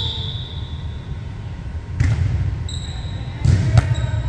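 A volleyball struck by hand on a serve, a sharp smack about three and a half seconds in, with another ball hit about two seconds in. Short high sneaker squeaks on the hardwood and low players' chatter echo around the gym.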